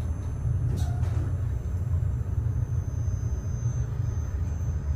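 Modernized Otis traction elevator car setting off downward, with a steady low rumble of the ride inside the cab and a single click about a second in.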